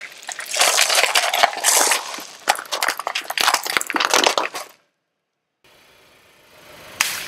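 Plastic cups full of candy-coated chocolates crunching and crackling under a rolling car tyre, a dense run of cracks and pops that cuts off suddenly a little before five seconds in. After a brief silence a faint noise rises, with a sharp crack near the end.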